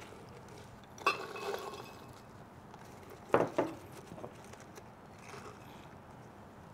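Glassware clinking: a ringing clink of a glass bowl against the glass blender jar about a second in, then a sharper knock of glass set down on the countertop about three and a half seconds in, with faint rustling of leaves and chopped nuts being tipped into the jar.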